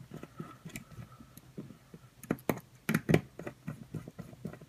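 Small sharp ticks and clicks of a hex driver turning small bolts into a carbon-fibre drone frame, with a few louder clicks between about two and three seconds in.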